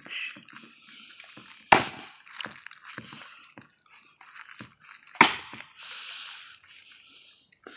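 Axe chopping into a log: two sharp, hard chops about three and a half seconds apart, the first under two seconds in, with fainter knocks and clicks between.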